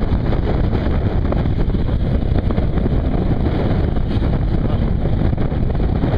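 Steady, heavy wind rumble on the microphone of a rider on a banana boat towed fast across the water.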